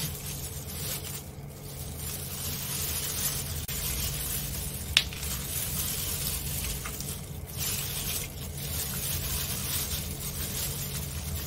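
Plastic disposable gloves crinkling and squishing as a poached chicken leg is torn from the bone and shredded by hand, over a steady low hum. One sharp click about five seconds in.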